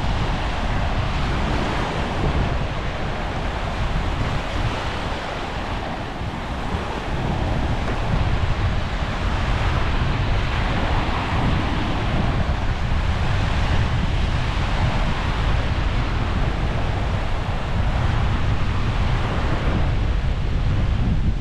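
Sea waves washing against the shore, a steady rushing surf, with wind buffeting the microphone as a low rumble that grows stronger after about seven seconds.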